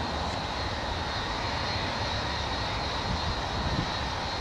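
Boeing 757 airliner's two jet engines running steadily at low taxi power as the plane turns on the runway: an even whine with a high tone over a low rumble.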